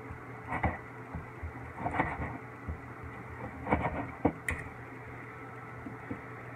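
A chef's knife cutting through seared steak, its blade knocking on the cutting board in about half a dozen irregular chops, the last one about four and a half seconds in.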